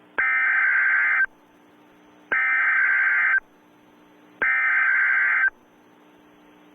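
Emergency Alert System SAME header: three bursts of screeching digital data tones, each about a second long and about a second apart, with faint static between them. These are the coded bursts that open an EAS alert.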